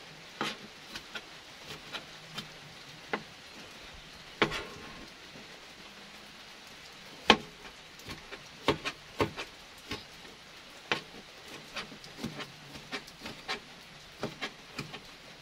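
Kitchen knife chopping tomatoes on a plastic cutting board: irregular sharp knocks of the blade hitting the board, roughly one or two a second, with one louder knock about seven seconds in.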